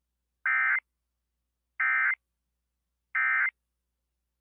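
Emergency Alert System end-of-message data bursts: three short, identical buzzy digital tones about 1.3 seconds apart, signalling the end of the alert message.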